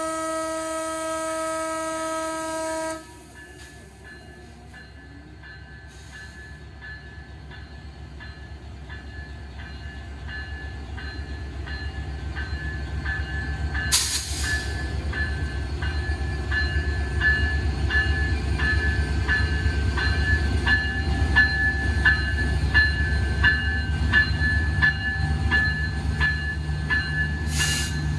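EMD 66-series diesel locomotive's horn sounding a steady multi-tone blast that cuts off about three seconds in, then its shunting bell ringing evenly, about one and a half strikes a second, over the engine's low rumble, which grows steadily louder as the train starts. A short sharp burst of noise cuts in about halfway through.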